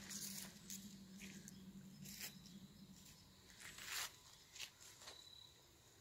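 Faint footsteps crunching on dry fallen leaves and gravel, a series of short irregular crackles with the loudest near the two-thirds mark. A faint low steady hum sits underneath and fades out about halfway through.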